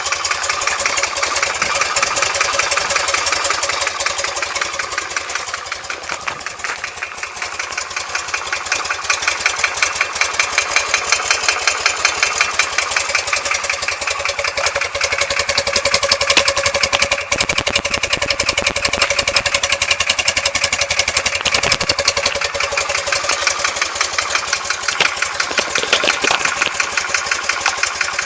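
BMW R100S air-cooled flat-twin engine running at a steady idle, revs dipping slightly and then rising a little. It carries the knock from the left side that the owner hears when the engine is cold and that goes away when it is warm.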